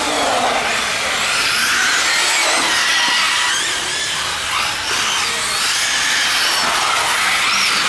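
Several electric radio-controlled model cars' motors whining, the pitch of each gliding up and down as they speed up and slow down, over a steady hiss.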